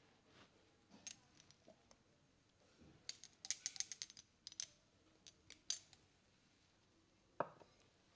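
A small glass bottle and its contents being handled close to the microphone: a quick run of sharp, high clicks and clinks about three seconds in, a few single clicks after, and one duller knock near the end.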